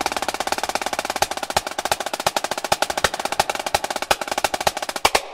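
Drumline snare drums playing a fast, dense run of strokes, stopping abruptly near the end.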